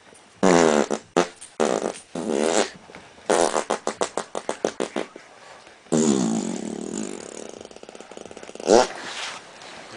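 Infant blowing raspberries and babbling: several runs of buzzing, sputtering lip noises that rise and fall in pitch, with a short, sharp squeal near the end.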